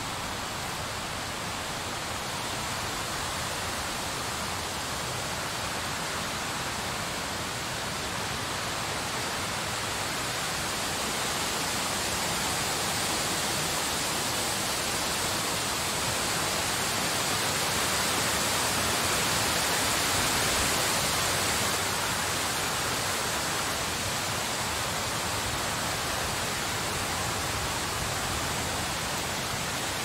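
Blizzard wind blowing as a steady rushing hiss, swelling a little around the middle and easing off again.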